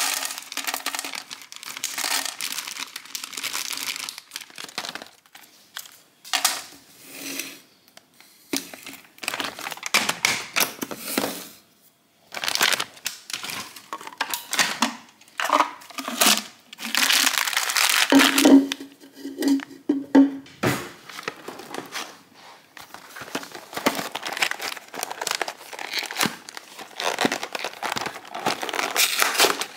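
Plastic grocery packaging crinkling and tearing in irregular bursts, with short gaps between handlings and soft knocks as packets and boxes are set down on a countertop.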